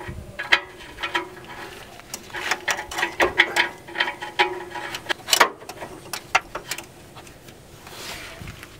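Irregular light clicks and ticks as a new oxygen sensor is turned by hand into its threaded port in the exhaust.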